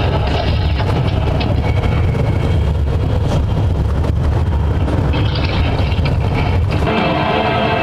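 Coach bus on the move, heard from inside the cabin: a steady low rumble of engine and road noise. About seven seconds in the rumble falls away and music begins.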